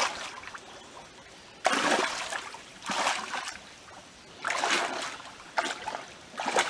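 Water splashing as a person wades through a shallow river pushing a floating rucksack: about five separate swishing splashes a second or so apart, the first and loudest a little under two seconds in.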